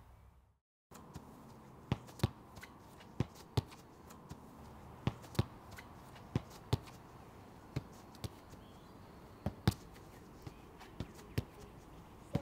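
A soccer ball kicked again and again against a brick wall: pairs of sharp thuds, the kick and the ball striking the wall, about one pair every second and a half.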